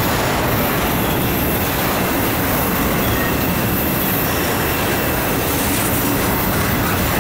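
Double-stack intermodal well cars rolling past at close range: a steady, loud rumble and rattle of steel wheels on the rails, with a faint high wheel squeal.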